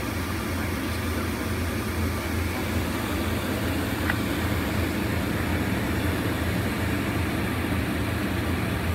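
A vehicle engine idling: a steady low hum that does not change.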